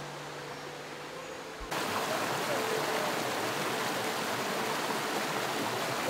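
Shallow stream water rushing and splashing over rocks, a steady rush that cuts in suddenly a little under two seconds in. Before it there is only a quieter background with a faint steady hum.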